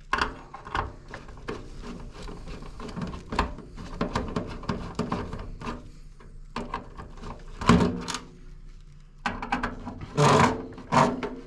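Handling noise while screws are taken out of a range hood's switch bracket: a steady run of small clicks, rattles and knocks of a screwdriver and sheet-metal parts, with one sharper knock about eight seconds in.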